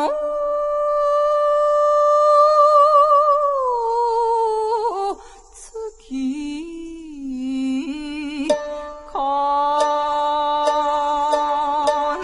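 A woman's voice holds a long sung note with vibrato, then slides down and falls away about five seconds in. Shamisen plucks come in sharply near the two-thirds mark, under a second sustained note, and settle into a steady plucked pulse near the end.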